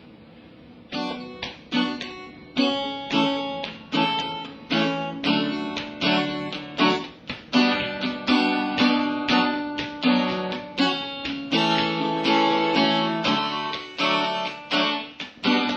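Instrumental intro of a pop song on acoustic guitar: a repeated rhythmic chord pattern that starts about a second in and runs until the vocals enter.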